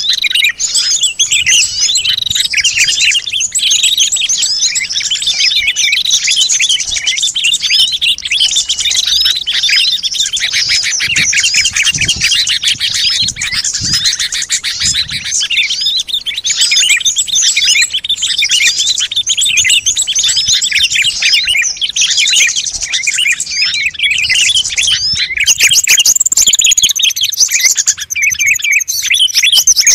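Dense chorus of small songbirds chirping and trilling together, many rapid overlapping calls: a bird-luring (pikat) recording meant to draw small wild birds in.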